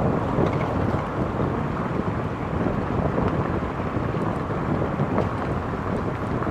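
Wind buffeting the microphone of a roof-mounted camera on a moving car, with steady road noise from the car underneath.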